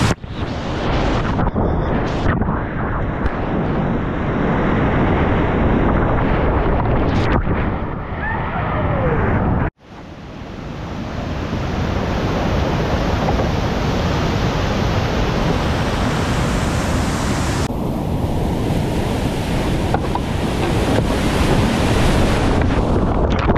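Loud rushing of whitewater rapids around a kayak, with water splashing over the bow as it runs through the foaming drops. The sound breaks off suddenly for a moment about ten seconds in, then the rushing returns.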